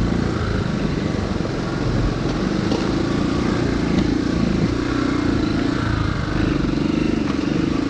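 Motorcycle engine running steadily beside the constant rush of a glacier-melt stream flowing across the road.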